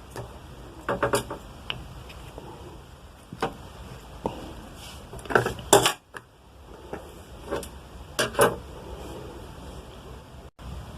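Scattered plastic clicks and knocks as a three-pin mains plug is handled and its cover is fitted on.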